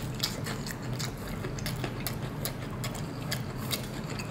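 Crispy battered fried chicken wing being bitten and chewed, its crust giving an irregular run of small sharp crackles.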